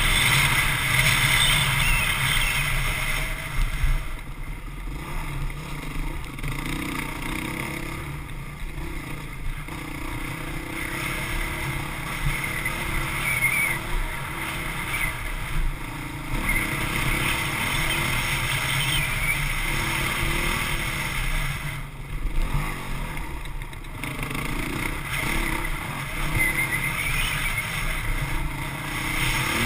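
Honda CRF450X single-cylinder four-stroke dirt bike engine running under throttle over rough ground, heard from the bike. It backs off twice, for several seconds from about four seconds in and again briefly around twenty-two seconds in, then pulls again.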